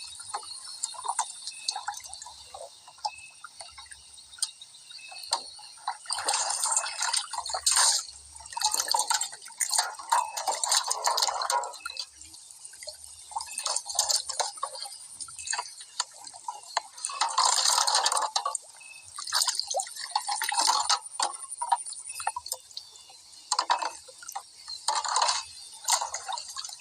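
Water splashing and sloshing in irregular bursts of a second or two, several times, over a steady high-pitched hum.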